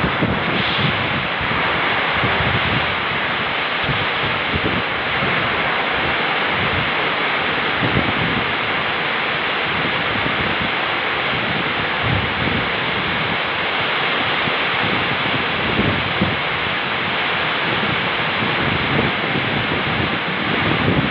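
Passenger train coaches rolling past at speed: a steady rushing noise of wheels on rail and moving air, with wind gusting on the microphone.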